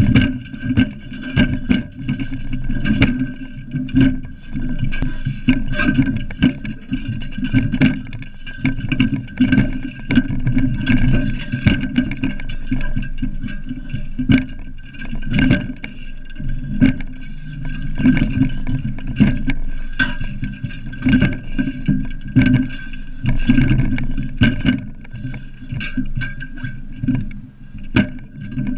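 Irregular knocks and clanks on a metal flagpole as a climber works his way up it, over a steady low rumble and a faint steady high tone.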